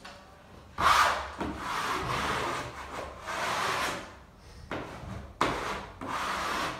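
Plastic wallpaper smoother swept over freshly hung wallpaper, four long scraping strokes that press the strip flat against the wall.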